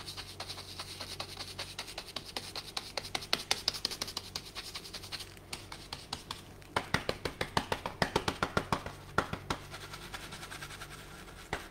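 Round stencil brush dabbing and scrubbing paint through a stencil onto a board: a fast run of soft taps with a scratchy hiss, turning to separate, louder taps about four a second about halfway through.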